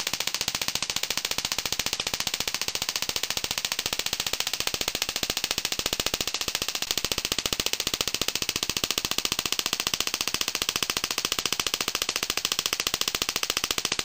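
Homemade 12 V spark-gap Tesla coil running, its static spark gap firing in a fast, steady crackle of rapid sharp snaps.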